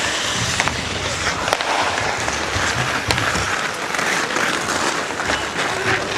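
Ice hockey play: skate blades scraping the ice over a steady noisy wash, with scattered sharp clicks of sticks and puck and some voices calling.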